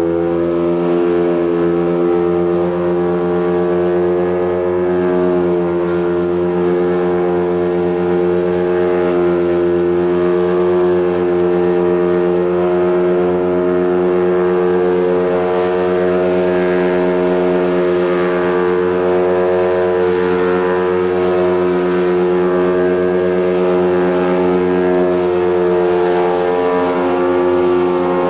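Ducted-fan VTOL flying platform's engines running steadily at hover power: a loud, constant drone whose pitch barely changes.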